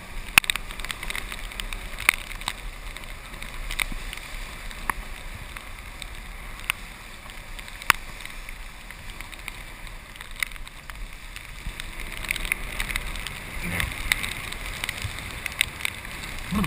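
Golf cart driving along a wet dirt road: a steady running noise with frequent irregular sharp clicks and rattles.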